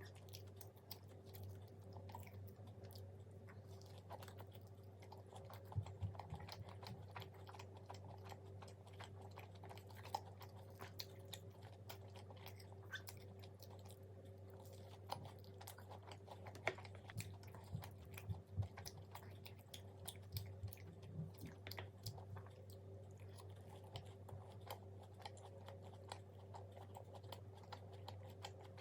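Close-up chewing and biting of fried food: many irregular small crunches and mouth clicks, faint overall, over a steady low hum.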